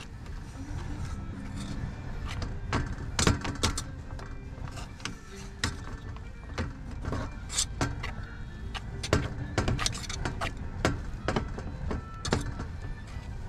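A fork scraping and clicking against a metal pan, mixing stiff potato scone dough, with many sharp irregular clicks.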